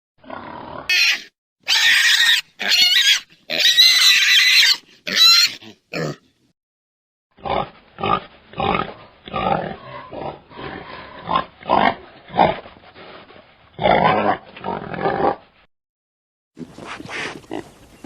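Pigs squealing loudly and shrilly in several bursts, then after a short gap a run of rapid, lower-pitched pig grunts and oinks.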